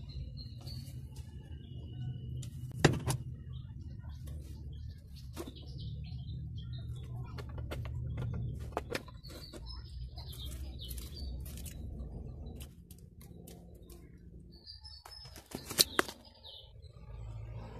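Metal clinks and knocks from removing the valve cover of an Isuzu 4HG1 diesel engine, with a sharp knock about three seconds in and another near the end, over a steady low rumble. Birds chirp now and then in the background.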